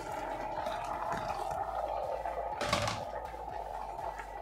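Chopped spinach being tipped from a plastic bowl into a steel pot of simmering beef, with a steady hiss and one knock or scrape about two-thirds of the way through.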